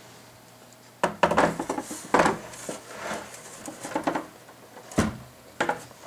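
Server motherboard being set down and handled on a wooden table: a string of knocks and clatters, starting about a second in, with the sharpest about two seconds in and again about five seconds in.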